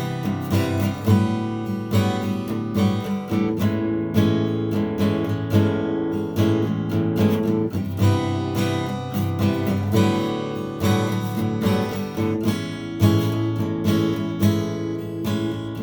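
Yamaha F335 steel-string acoustic guitar being played, chords strummed with frequent strokes and ringing notes.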